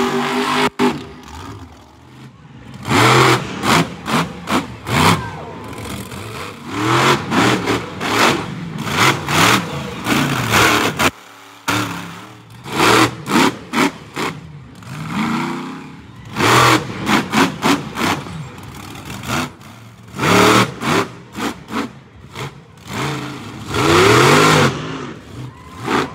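Monster truck engines revving hard in repeated bursts, the pitch climbing and falling with each blip of the throttle, with a short break about eleven seconds in.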